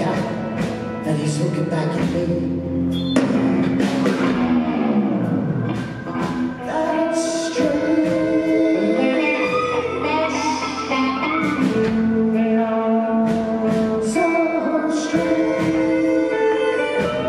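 Live rock band playing a slow, heavy blues-rock song on electric guitar, electric bass, drums and keyboards, with singing. There is a long falling glide a few seconds in.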